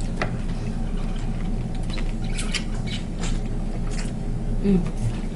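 Close-miked eating of a seafood boil: chewing and mouth smacks with scattered clicks and crackles, over a steady low hum.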